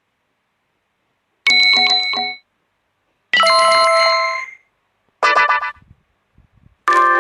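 HTC phone notification tones: three short electronic chimes of several notes each, each a different tune, with silent pauses between, and a fourth starting just before the end.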